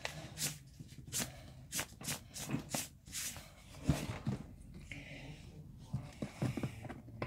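A string of short rustles, taps and scrapes from hands handling things on a desk, about ten in quick, uneven succession, thinning out after about four seconds.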